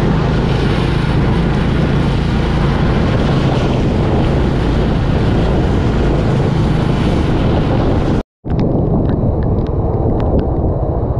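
Loud, steady rushing noise of wind on the microphone, broken by a sudden dropout to silence about eight seconds in; after it the rush carries on, duller, with scattered clicks.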